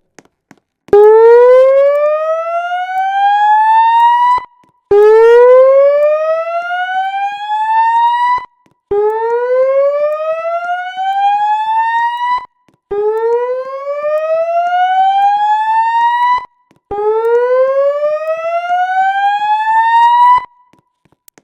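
Notifier voice-evacuation fire alarm speakers sounding the slow whoop tone: a buzzy tone that rises in pitch over about three and a half seconds, cuts off, and repeats, five whoops in all. This is the alert tone that plays between the spoken evacuation messages.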